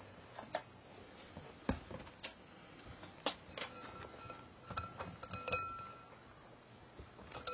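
Kittens play-fighting: scattered light taps and knocks from small paws and bodies bumping against the floor and nearby objects.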